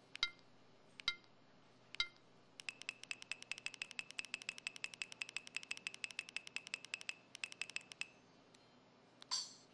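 Samsung SCH-V330 mobile phone sound effects from its small speaker: three short electronic blips about a second apart, then a fast run of ticking beeps, about eight a second, for roughly five seconds, and a short sweeping chirp near the end.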